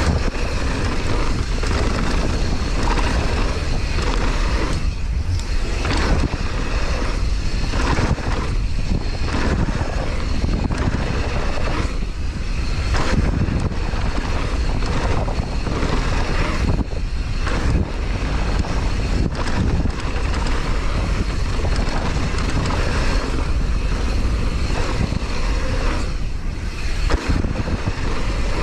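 Mountain bike ridden fast downhill: wind rushing over the camera microphone with tyre noise from the trail. It runs loud and unbroken, swelling and dipping in level all the way.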